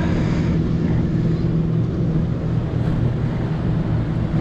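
Steady low engine drone with an even, unchanging hum.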